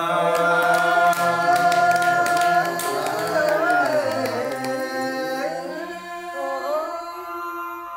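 Unaccompanied hát Thái (Thai ethnic folk song), sung by a man and a woman together in long, drawn-out held notes. The man's lower voice drops out about six seconds in, leaving the higher voice.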